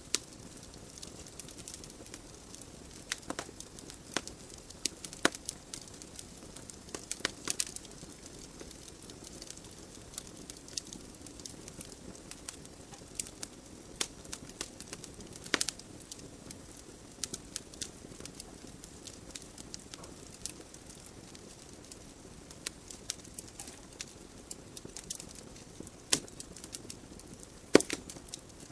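Wood logs burning in a fireplace: a soft steady hiss of flames with frequent sharp, irregular crackles and pops.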